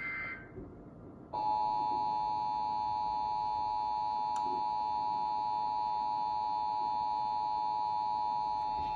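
SAGE EAS ENDEC sounding the end of a SAME header data burst, then after about a second the Emergency Alert System two-tone attention signal, held steady for about eight seconds. It heralds the spoken emergency message.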